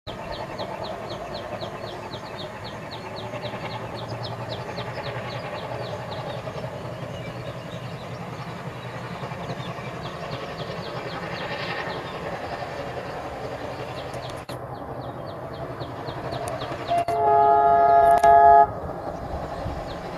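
ALCO WDM-3A diesel locomotive approaching under load up a gradient, its engine a steady rumble. The locomotive's horn sounds near the end for about a second and a half, the loudest sound.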